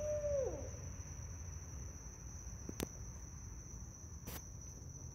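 Barred owl hoot at the start, held on one note and then sliding steeply down in pitch, lasting about half a second. A steady high insect trill runs underneath, and two sharp clicks come later.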